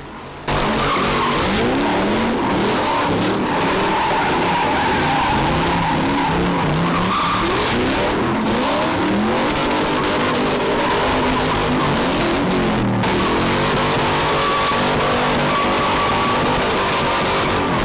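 A car drifting, its engine revving up and down over and over under a steady screech of spinning tyres. The sound starts suddenly about half a second in.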